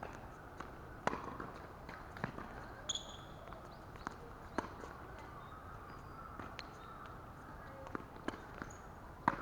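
Tennis ball being struck and bouncing on a court: a series of sharp, irregularly spaced pops, the loudest about a second in and near the end.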